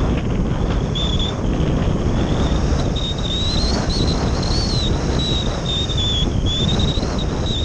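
Airflow rushing over the microphone of a camera riding on a Phase 6 radio-controlled glider in flight: a loud, steady buffeting rumble. A thin high whistle wavers up and down in pitch through it.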